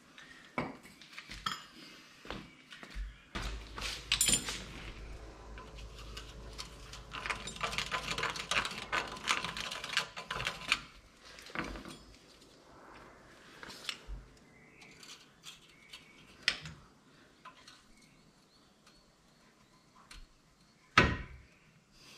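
Steel hand tools working on a car's outer tie rod end: a wrench clinking and scraping on the joint and its nut, with a stretch of quick clicking in the middle and one loud metallic knock near the end.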